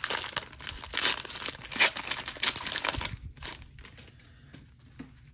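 Plastic trading-card pack wrapper being torn open and crinkled: a dense crackling rustle for about three seconds, then a few faint ticks and taps as the cards are handled.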